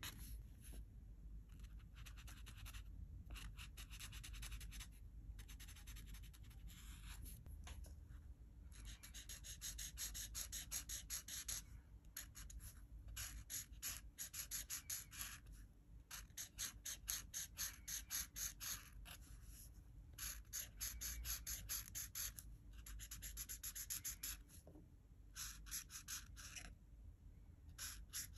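Art marker tip scratching across colouring-book paper in runs of quick back-and-forth strokes, with short pauses between the runs.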